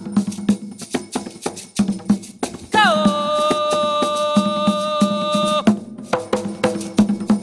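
Umbanda ceremonial hand drumming with percussion, a steady run of dense strikes. About three seconds in, one high voice glides down into a long held note that lasts about three seconds and stops abruptly.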